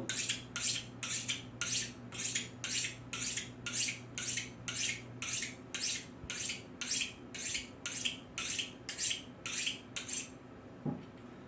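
Kitchen knife blade stroked rapidly and evenly along a butcher's steel, about two to three bright metallic scrapes a second. The strokes stop shortly before the end. This is honing after coarse stone sharpening, to polish the edge and take off the burr.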